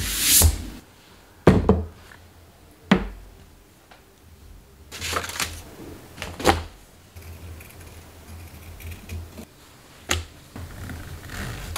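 Hands working at a tabletop: a brushing sweep of shavings off the surface at the start, then a few separate knocks and thuds with quiet handling noise between, as paper patterns and leather pieces are handled.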